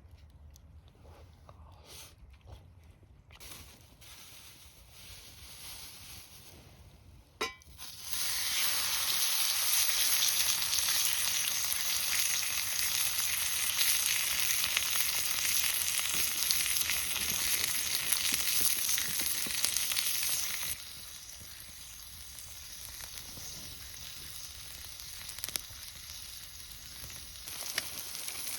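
Food frying in a hot pan: a sharp click, then a loud sizzle starts suddenly about eight seconds in. About two-thirds of the way through it drops to a softer, steady sizzle.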